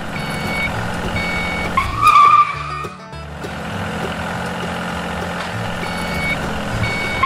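Dubbed vehicle sound effect: a steady low engine rumble with a repeated half-second beeping tone, twice near the start and twice near the end, and a short high pitched sound about two seconds in.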